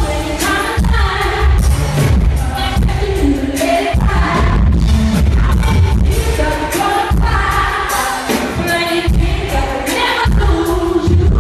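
A female R&B singer singing live into a microphone over a band with heavy bass, heard through the venue's sound system from the audience.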